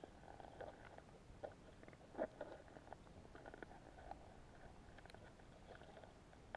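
Near silence from an action camera sealed in its waterproof housing underwater. Only faint, muffled knocks and clicks come through, with one louder bump about two seconds in.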